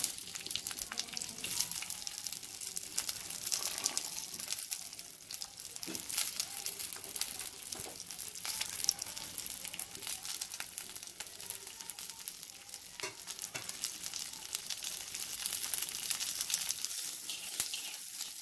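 Sliced onions and garlic cloves sizzling and crackling in hot oil in a clay pot, starting as they are tipped in, as they begin to sauté.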